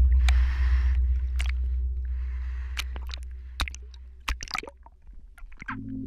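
Ocean water sloshing and splashing around a waterproof action camera held at the surface, with a deep rumble that fades away over the first four seconds. As the camera goes under, bubbling and scattered clicks follow, and soft music begins near the end.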